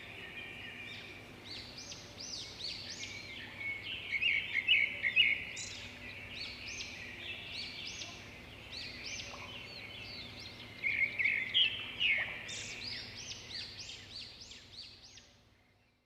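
Several songbirds singing together, a dense mix of quick chirps and trills, with a faint steady background hum, fading out near the end.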